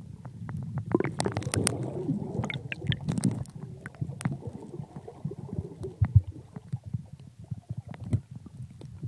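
Underwater recording from a camera in its housing: a muffled low rumble of water moving and bubbling around the camera, with many scattered clicks and knocks, busiest in the first few seconds.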